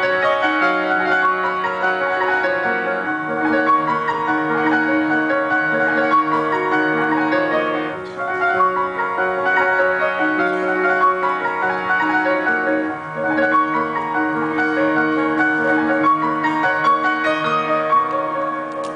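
Grand piano played live: flowing chords over held low notes that change every second or two, with two brief dips in loudness about eight and thirteen seconds in.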